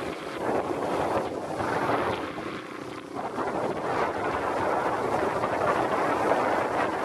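Small motorcycle running along a rough dirt track, its engine noise mixed with wind rushing over the microphone.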